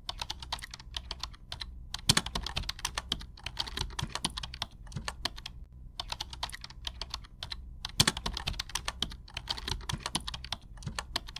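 Rapid, irregular computer-keyboard typing clicks, pausing briefly around two seconds in and again near the middle.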